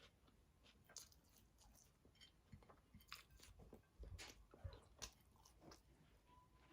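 Faint chewing of food, heard as a scatter of small irregular clicks with a few soft knocks.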